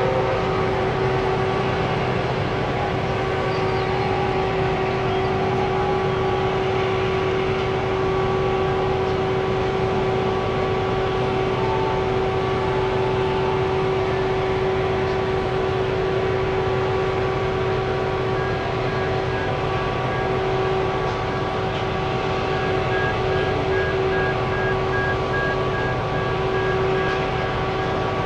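Heavy diesel machinery running steadily: a constant engine noise with a held whine of several steady tones over it.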